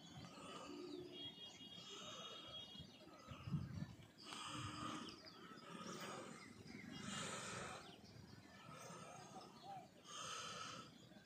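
Quiet outdoor ambience with faint birds chirping. Soft noisy swells come and go every second or two, and there is a single low thump about three and a half seconds in.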